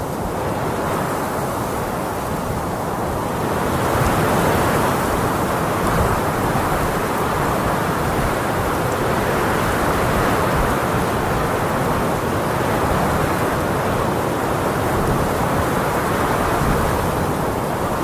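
Blizzard wind rushing steadily over the beach with surf mixed in, growing louder about four seconds in.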